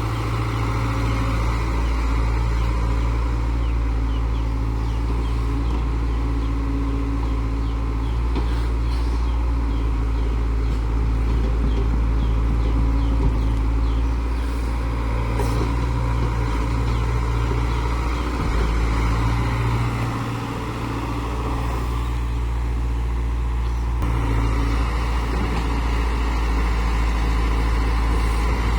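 Engine of a heavy earthmoving machine running steadily under load with a deep hum, dipping briefly about two-thirds of the way through.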